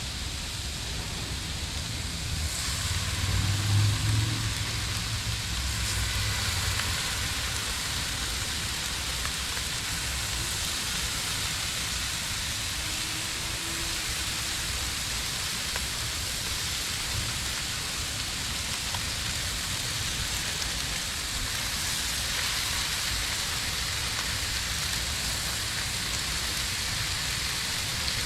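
Bacon sizzling on a hot Blackstone flat-top griddle: a steady crackling hiss that gets louder about two and a half seconds in. A low rumble joins it for a few seconds early in the sizzle.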